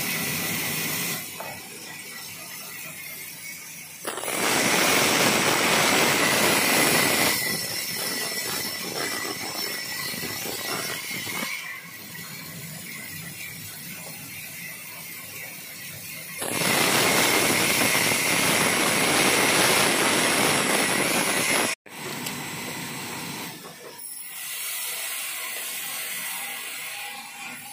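Sawmill band saw running, its blade ripping lengthwise through logs. The sound swells to a loud hiss with a steady high whine during two cuts, about four seconds in and again about sixteen seconds in, and falls back to quieter running between them.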